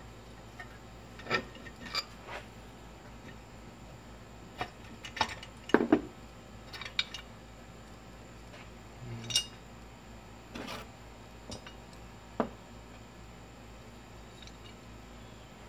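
Scattered clinks and knocks of metal parts as the cylinder head is lifted off a Briggs and Stratton flathead single-cylinder engine and handled, with the loudest knocks about six seconds in.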